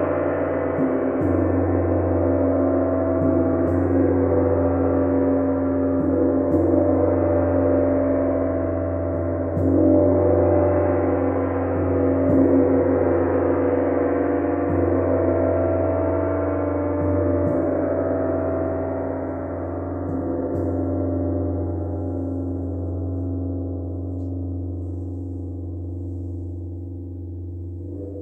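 Gong sound bath: a gong held ringing in a dense, sustained wash of overlapping tones. It swells slightly about ten and twelve seconds in, then slowly dies away over the last third, the higher tones fading first.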